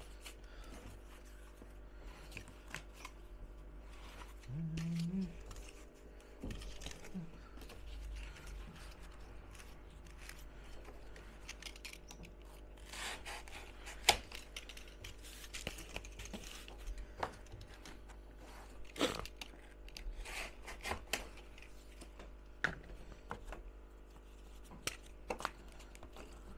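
Corrugated cardboard being cut and the pieces handled and pushed into place: faint scattered snips, scrapes and rustles, with one sharp click about fourteen seconds in.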